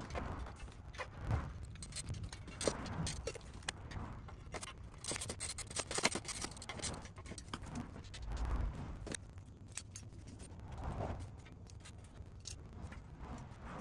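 Metal clinks, knocks and scrapes of a wheel-stand frame and its rollers being handled and fitted together during assembly, with a low thump about eight seconds in.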